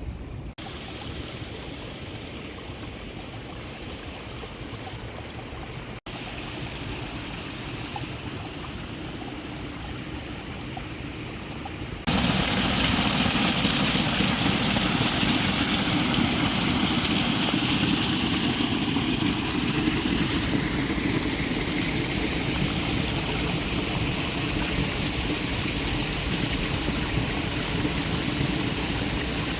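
Steady rushing of running water, a continuous noise that jumps clearly louder about twelve seconds in.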